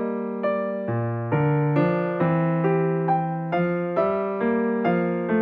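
Background music on a piano-type keyboard: notes and chords struck about twice a second, each fading out before the next.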